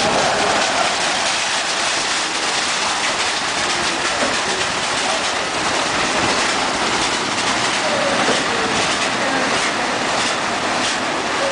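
Autobase WF-51 rollover car wash machine running, its rotating side and top brushes scrubbing a car amid water spray: a steady, dense rushing noise.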